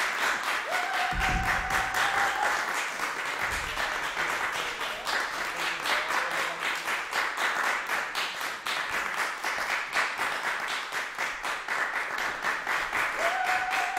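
Audience applauding steadily at the close of a performance. A held high call rises above the clapping about half a second in and again near the end, and there are two low thuds in the first few seconds.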